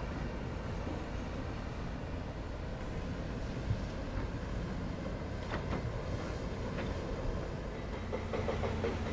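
Heavy demolition machinery working at a distance: a steady low rumble with scattered metallic clanks and knocks, and a steady engine hum joining near the end.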